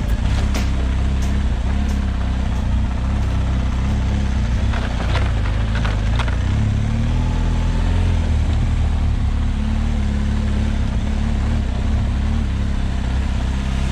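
Motorcycle engine running steadily at low revs while riding a rutted dirt track, with a few sharp knocks about five to six seconds in and a slight rise in engine pitch soon after.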